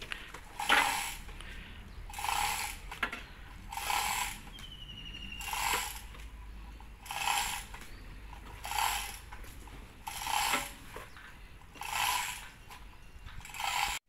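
Hand ratchet chain hoist (come-along) worked in steady strokes, a clicking ratchet rasp about every one and a half seconds, drawing a chain taut.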